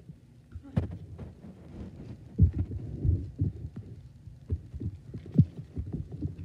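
Irregular soft low thumps and rustling of handling and movement close to the microphone, with one sharper click about a second in.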